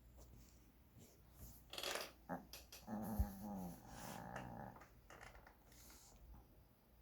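Sleeping puppy snoring: irregular breathy snores and snorts, with a short pitched vocal sound, slightly falling, about three seconds in.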